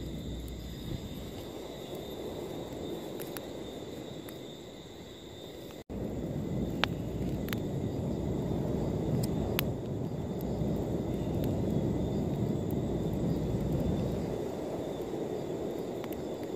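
Wood campfire burning, with a few sharp crackling pops over a steady low rushing noise.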